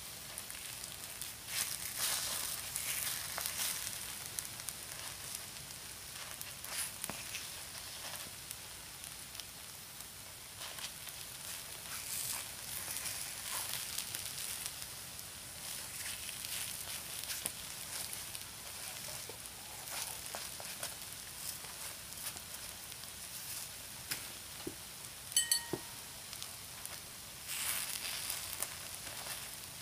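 Takoyaki batter sizzling and crackling in the hot wells of a Nichinen electric takoyaki maker, with small clicks and scrapes of bamboo skewers turning the balls. About 25 s in there is one brief high-pitched tone.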